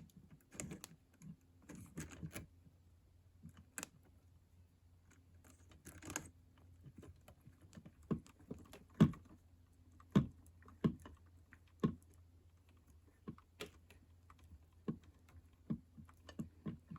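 Irregular small clicks and taps of hands working electrical wires, joining the fan wire to a smart switch's lead in a wall box, over a faint steady low hum.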